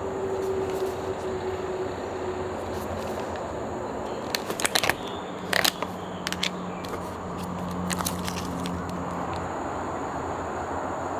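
Steady background traffic rumble, with a few short sharp crackles about four to eight seconds in.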